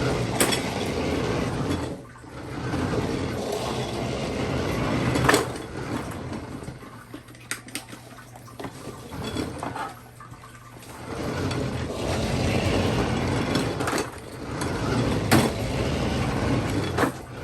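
Small electric drive motor of a toy remote-control truck whirring as it runs, stopping briefly about two seconds in and again for a few seconds midway before running on, with scattered clicks and knocks.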